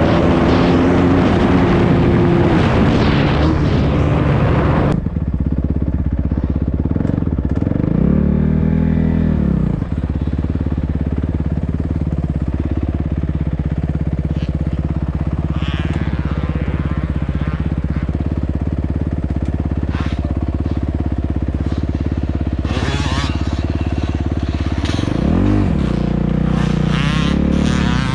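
Dirt bike engine running: busy and under way for the first few seconds, then an abrupt change to a steadier, lower note, revved up and back down twice, near the middle and again near the end.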